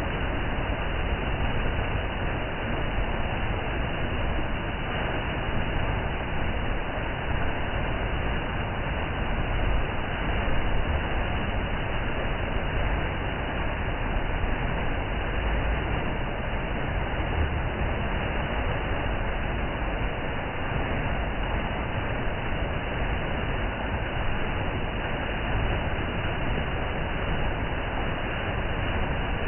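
A waterfall rushing in a steady, dense roar of falling water.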